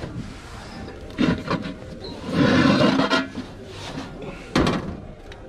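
Aluminium cooking pots and their lids being handled on a store shelf: a few knocks, then the loudest part, a longer rattling scrape about two and a half seconds in, and one sharp knock near the end.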